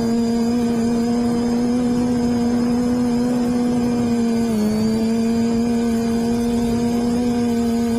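Quadcopter's electric motors and propellers humming steadily in flight, heard from on board with a rush of prop wash and wind; the pitch drops a little about four and a half seconds in.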